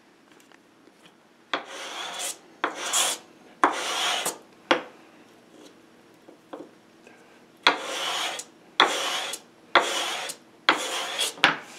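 Sandpaper on a wooden block rubbed along a thin strip of veneer stringing, stroke by stroke. Three strokes, a pause of about three seconds, then four more. It is knocking off burrs and thinning the stringing a little so it will not fit tight in its inlay groove.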